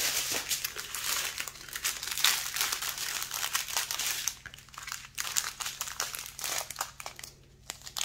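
Small plastic bags of diamond painting drills crinkling as they are handled, dense for about the first four seconds, then thinning to separate crackles.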